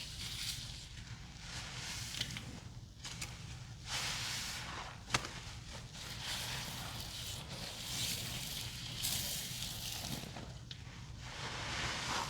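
A sudsy mix of cleaning products, foaming bath salts and small sponges being worked, making wet squishing sounds in uneven swells, with one sharp click about five seconds in.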